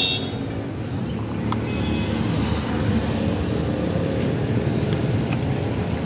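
Steady low rumble of motor vehicle noise, with a couple of small clicks from hands working the motorcycle's plastic instrument cluster.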